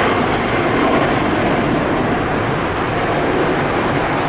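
Airbus A340-600's four Rolls-Royce Trent 500 engines at climb thrust just after takeoff, a loud steady jet rumble.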